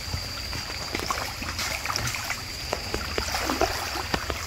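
Stream water sloshing and splashing around a person wading waist-deep while hauling a fishing net, with many small irregular splashes and drips over a steady rush of moving water.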